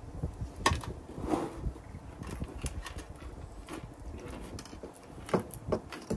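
Objects being handled on a desk: a few scattered light knocks and clicks over a low background rumble.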